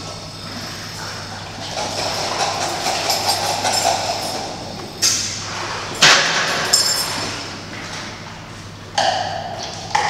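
Metal buckets struck in two pairs of sharp hits, each ringing briefly, over a rougher scraping and rustling noise and a steady low hum.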